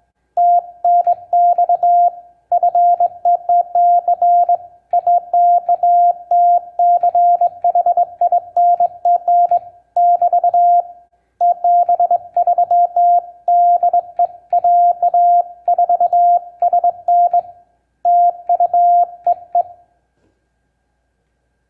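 Morse code sent on a home-brew semi-automatic bug key, heard as a sidetone of about 700 Hz keyed on and off in fast strings of dots and longer dashes, with faint clicks at the keyings. The sending stops about 20 seconds in.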